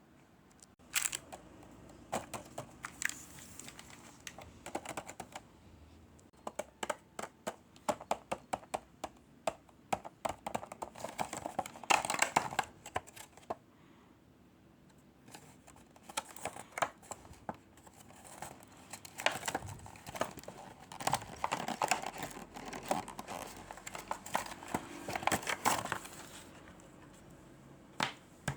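Packaging crinkling and tearing as items are unwrapped by hand, in irregular bursts of rustles and sharp clicks with a short lull partway through.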